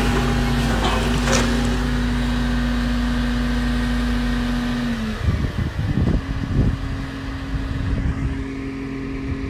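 Diesel engine of a large Volvo crawler excavator running steadily under load as it works demolition rubble. About halfway through, the engine note drops and then settles at a slightly different pitch, with irregular low thumps after it.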